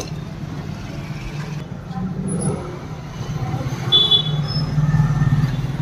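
Street traffic: a steady low engine rumble from passing vehicles, growing louder in the second half.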